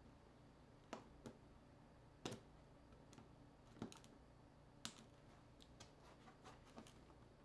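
Faint, scattered clicks and taps of small tools and plastic parts on a smartphone being taken apart by hand, over quiet room tone, with a few smaller clicks close together near the end.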